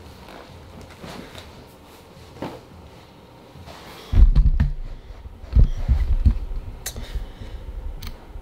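Faint room hiss, then from about four seconds in, two clusters of heavy low thumps and rumbles: a person moving and bumping close to the microphone.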